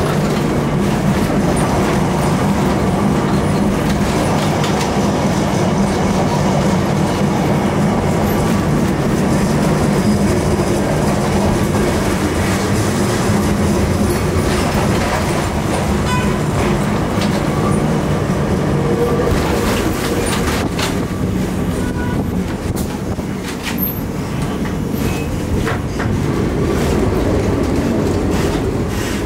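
Historic Lisbon electric tram heard from inside the car as it runs along the rails: a steady hum and rumble from the motor and wheels, with clicking and rattling that comes mostly in the second half.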